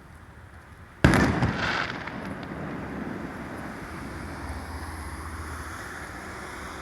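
A firework shell bursting overhead with one sudden loud bang about a second in, followed by a long rumbling tail that fades slowly.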